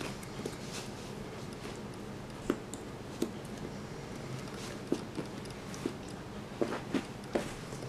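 Cardboard jigsaw puzzle pieces handled by a small child on a wooden floor: scattered light taps and clicks as pieces are picked up and set into the puzzle tray, several in quick succession near the end, over a steady faint hiss.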